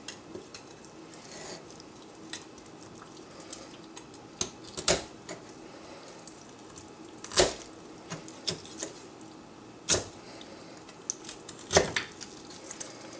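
Kitchen knife cutting the breastbone and cartilage out of a raw spatchcocked chicken on a wooden cutting board: about half a dozen sharp clicks and snaps at uneven intervals, with fainter ones between.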